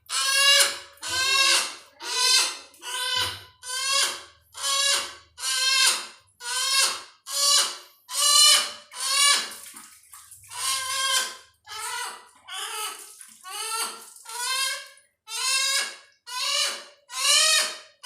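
Hill myna giving a long series of loud, harsh, wavering calls, about one and a half a second, while it is being bathed.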